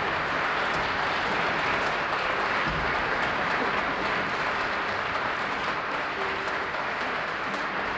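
Concert audience applauding, a steady, even clapping that eases slightly near the end, heard on an old 1959 broadcast recording.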